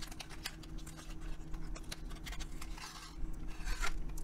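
Small cardboard pen box being opened by hand: a paper sleeve slid off the inner tray with scattered light clicks and taps, then a short rustle of card and packaging about three seconds in.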